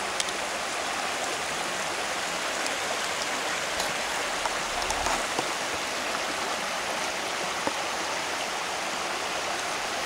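Small creek running steadily over rocks: an even rush of flowing water, with a few faint clicks over it.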